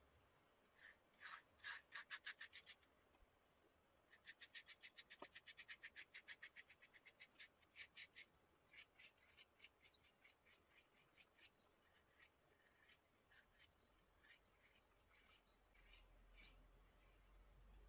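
Faint, quick strokes of a bristle paintbrush spreading liquid finish over a turned wooden goblet. The strokes come in runs of about five a second, then slow to sparser strokes that stop about sixteen seconds in.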